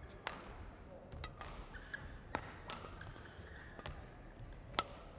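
Badminton rally: rackets striking a shuttlecock back and forth, a series of sharp cracks about every half second to a second, the loudest near the end.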